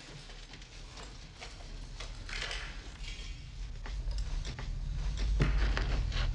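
Winch paying out a cable to lower a man down a shaft: scattered mechanical clicks and rattles, a brief hiss, and a low hum that swells in the second half.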